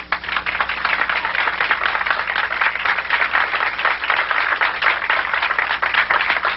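Audience applauding: many hands clapping at once, holding steady.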